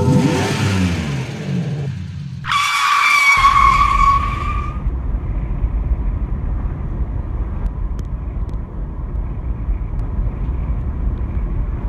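A car's tires screech loudly for about two seconds, after a vehicle sound that falls in pitch. Then a car engine runs with a steady low rumble.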